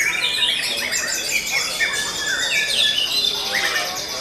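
Several caged white-rumped shamas (murai batu) singing at once: overlapping loud whistles, up-and-down glides and rapid trilled phrases with no break.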